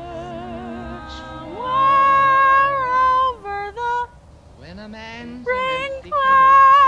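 A woman singing wordless high notes with a wide vibrato, sliding between pitches. She holds two long high notes, one about two seconds in and one near the end.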